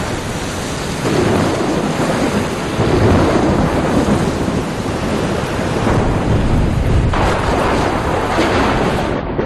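Heavy rainstorm: a downpour hissing steadily, with low rolling rumbles of thunder swelling and fading beneath it.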